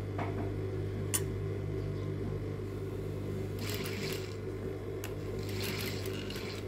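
Industrial sewing machine's motor humming steadily while fabric is fed slowly under the presser foot. There is one sharp click about a second in, and the fabric rustles twice later on as it is handled.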